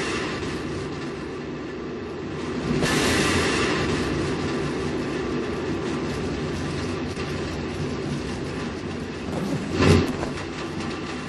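Steady rumbling noise with whooshing swells, one about three seconds in and a sharper, louder one near the end.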